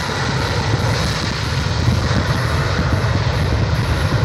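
Four-engine jet noise from a Boeing 747-400 rolling down the runway at high power, most likely on its takeoff run: a loud, steady deep rumble with a hiss above it.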